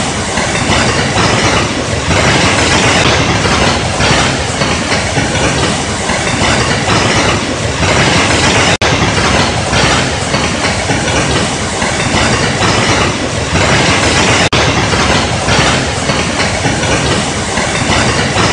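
A waterfall in full flood: a torrent of muddy floodwater pouring over rock and rushing through the channel below, a loud, unbroken roar of water. The sound cuts out for an instant twice.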